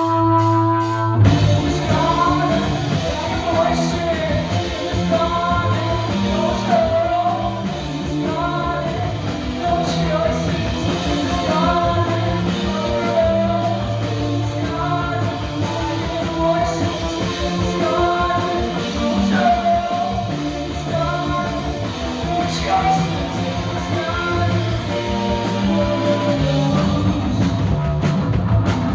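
Live rock band playing loud: distorted electric guitars, bass and drums, with a voice singing over it. About a second in, a held guitar chord gives way to the full band.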